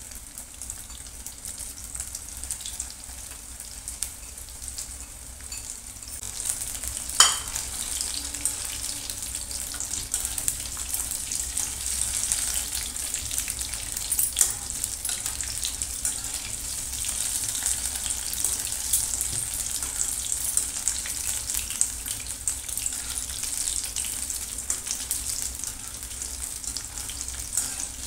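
Breadcrumb-coated paneer sticks deep-frying in hot oil in a steel kadai: steady sizzling and crackling that grows louder about six seconds in. There is a single sharp clink about seven seconds in.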